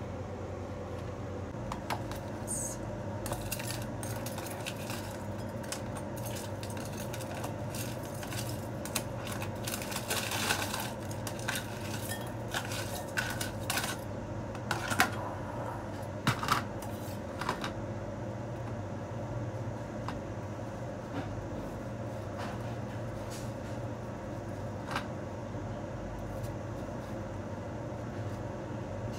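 A metal spoon clinking and scraping against a ceramic bowl and plastic tub as frozen black jelly cubes are scooped into the bowl. The clinks are frequent for the first half and sparse later, over a steady low hum.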